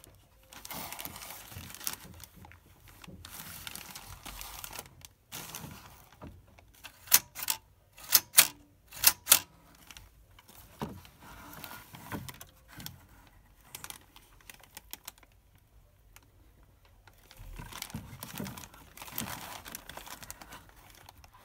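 Handling noise from an old plastic Kodak Flashfun camera and a clear plastic bag on a wooden shelf. Plastic crinkles and rustles, then comes a quick run of about five sharp clicks and knocks about seven to nine seconds in, and more rustling near the end.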